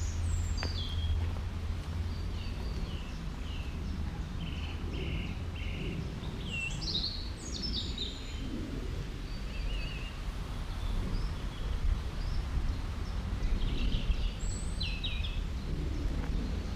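Wild birds singing and calling, in scattered short notes and quick falling chirps throughout, over a steady low rumble.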